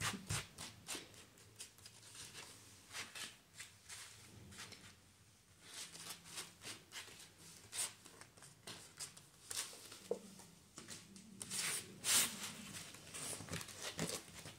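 Tarot cards being shuffled and handled: a scatter of short flicks and taps, quieter for a moment in the middle.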